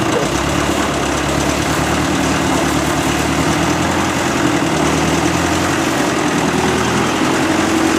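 Ferguson TEF20 tractor's four-cylinder diesel engine idling steadily, just caught on a cold start helped by starting fluid in the air intake.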